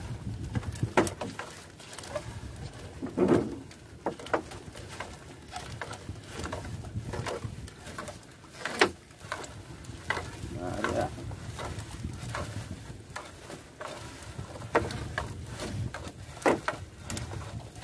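Irregular knocks and rustling over a steady low rumble as a sinking gill net is hauled in by hand.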